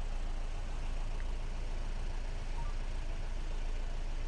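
Car engine idling steadily with the even hum and hiss of traffic around it, heard from inside the car's cabin while it stands at a toll booth.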